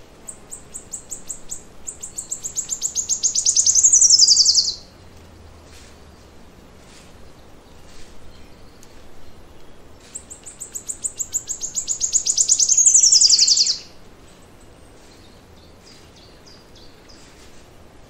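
A songbird sings the same song twice. Each song is a long run of high, rapidly repeated notes that speeds up and grows louder, then slides down in pitch and stops abruptly. Faint chirps from other birds fill the gaps.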